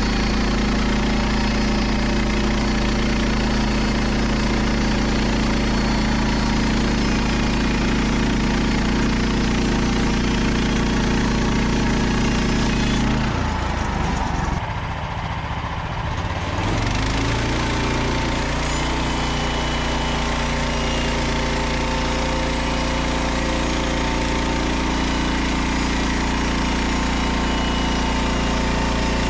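Frontier OS27 portable bandsaw mill running, its small petrol engine driving the band blade through a Douglas fir log. About 13 s in the engine note drops away for a few seconds as the cut ends, then it picks up and runs steadily again.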